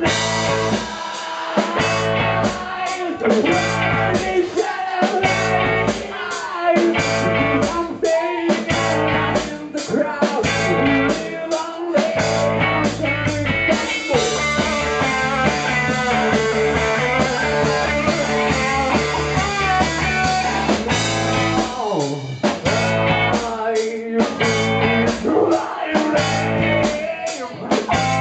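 Live rock band playing, with a singer's vocals into a microphone over electric guitar, bass and drums. For much of the time the band plays short stop-start hits, with one longer held stretch in the middle.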